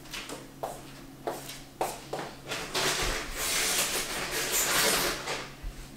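A few light footsteps and knocks, then about two and a half seconds of rustling as a plastic water bottle is pulled from its pack, under a steady low hum.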